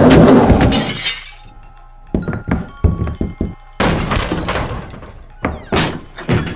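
Dubbed-in sound effects: a loud crash with shattering in the first second, then a run of knocks and thuds with a second crash about four seconds in, over background music.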